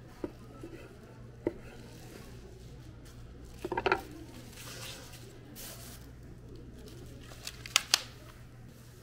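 Food-packing handling sounds: a few light knocks on a wooden board, plastic bag crinkling and rustling, and a styrofoam takeout box being closed, with two sharp snaps close together near the end as a rubber band goes around the box.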